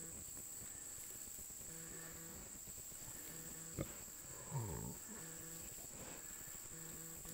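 American Guinea Hog sow grunting softly in an even rhythm while farrowing, about one short grunt every second and a half, with a louder, deeper grunt about four and a half seconds in and a sharp click just before it. A steady high insect drone runs underneath.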